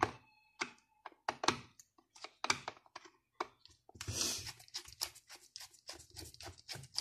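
Screwdriver turning a screw out of a plastic steam iron's soleplate: a run of irregular small clicks and scrapes, coming thicker from about halfway in.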